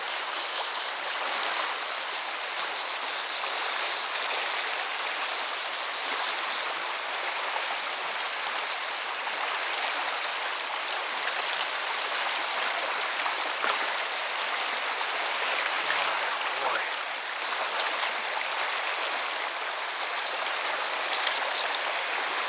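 Fast, shallow river current rushing steadily over rocks.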